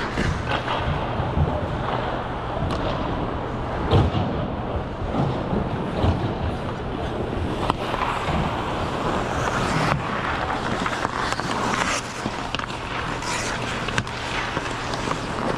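Ice skate blades gliding and scraping on rink ice: a continuous hiss of blade noise with a few sharper scrapes and clicks, over a steady low hum.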